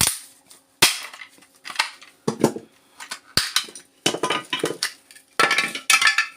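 Hard plastic casing of a power adapter being cracked and broken open with a hand tool: a series of sharp snaps, with bursts of crunching and crackling plastic in between and a longer crunching spell near the end.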